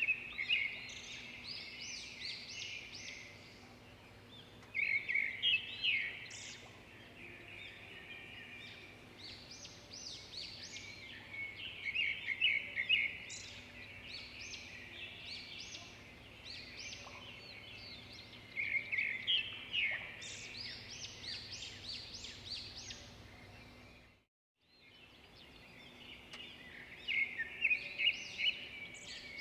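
Bird singing in repeated bursts of quick, high chirps and trills, each run lasting a few seconds. The sound cuts out for a moment near the end.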